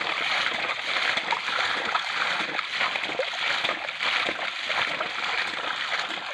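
Muddy water splashing and sloshing as it is bailed out of a shallow pool by hand, in rapid repeated scoops, with the pool nearly drained.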